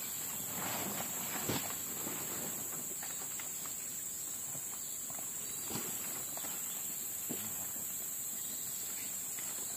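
Steady high-pitched drone of forest insects, with faint scattered knocks and rustles of handling or footsteps.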